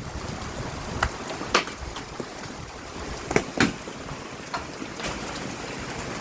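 Large hailstones, almost golf-ball size, striking the ground and nearby surfaces: about half a dozen separate sharp knocks over a steady hiss of falling hail and rain.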